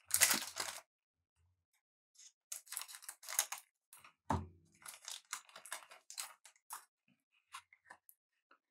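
Trading-card pack wrapper crinkling and tearing as cards are handled, in short irregular rustles, with a soft thump about four seconds in.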